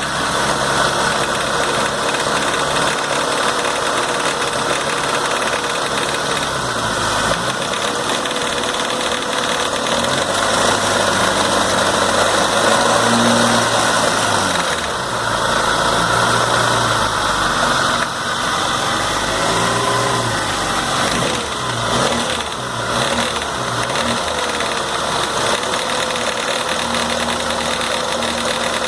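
MG 1300's four-cylinder BMC A-series engine running with a rattle, its speed rising and falling a few times. The rattle comes from the idler gear.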